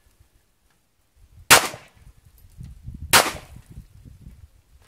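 FN P90 (5.7x28mm) firing two single shots about a second and a half apart, each a sharp crack with a short ringing tail, with a brief sharp click at the very end. The single shots come from a trigger pulled only partway on the P90's two-stage trigger, which gives semi-auto until squeezed further into full auto.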